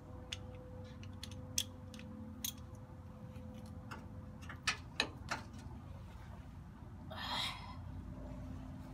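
Scattered light metallic clicks and clinks of a ratchet, socket and extension being taken apart and handled at a shock mount, over a faint steady hum, with a short rustle near the end.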